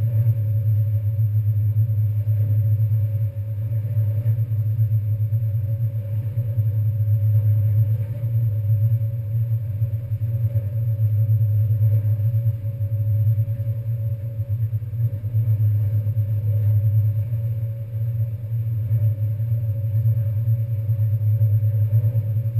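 NY Waterway ferry's diesel engines running steadily underway: a loud, deep, even hum with a fainter steady higher tone above it.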